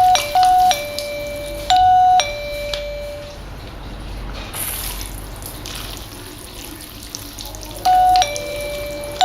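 Wireless doorbell receiver ringing a two-note ding-dong chime four times, the last after a pause of several seconds, over a steady hiss of running water. The doorbell's water-resistant remote still sets off the chime while wet.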